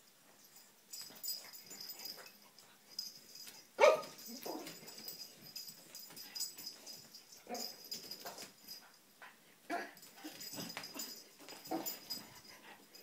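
Pug puppy giving a string of short, scattered barks and whines, the loudest a sharp one about four seconds in. It is alarmed by a heart-shaped bowl on the floor.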